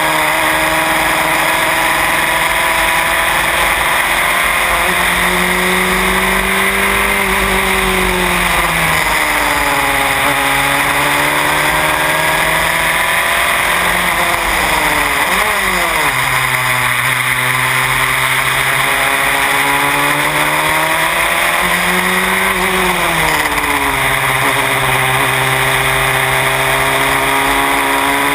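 Onboard sound of a Van Diemen Formula Renault R98 single-seater's engine at racing speed, its pitch climbing and falling through the gears, with sharp drops and quick blips on braking and downshifting about halfway through and again near the end. Wind noise over the cockpit runs steadily underneath.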